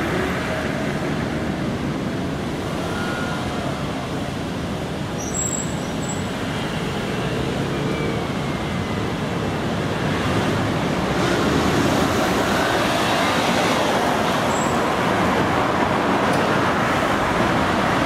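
Steady city street traffic, car engines and tyres, with an Iyotetsu 50-series tram running along the street track among the cars; the sound grows a little louder about ten seconds in as the tram draws near.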